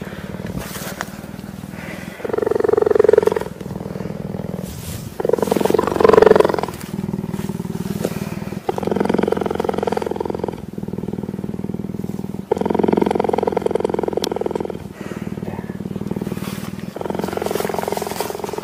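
An animal giving a run of loud, pulsed, low calls, each one to two seconds long, repeated every two to four seconds.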